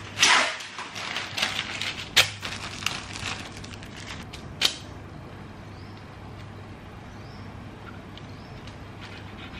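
A paper sheet rustling and crackling as it is spread over a wooden cutting board, with a swish near the start and a couple of sharp knocks. After about five seconds only a low steady hum remains.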